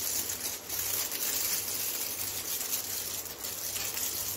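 Aluminium foil crinkling steadily as it is pressed and smoothed down over the rim of a biryani pot to seal it.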